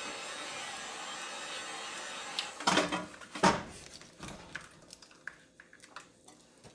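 Electric heat gun blowing steadily, warming the adhesive backing of a control-board overlay, then switched off about two and a half seconds in. Two sharp knocks follow, then light clicks and scrapes as a blade pries the overlay off the plastic control board.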